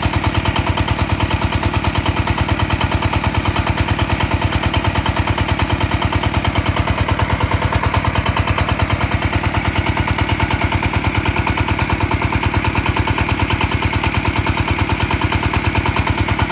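Small single-cylinder stationary diesel engine running steadily at idle-to-working speed, powering a well water pump, with a fast, even thudding exhaust beat.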